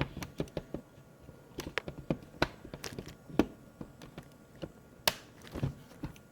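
Irregular light clicks and taps of plastic laptop parts being handled and fitted together, a few per second, with one sharper click about five seconds in.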